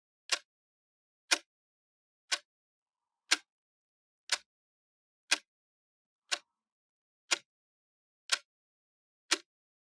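Clock ticking steadily, one sharp tick a second, with nothing else heard between the ticks.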